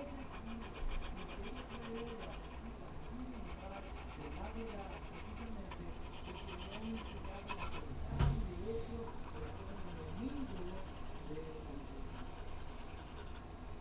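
Coloured pencil rubbing and scratching on paper in repeated shading strokes, with a person's voice in the background and a single knock about eight seconds in.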